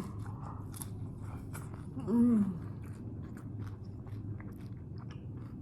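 Close-up chewing of a crunchy taco shell with pickles: many small, irregular crunches and wet mouth clicks. A short hummed "mm" falls in pitch about two seconds in.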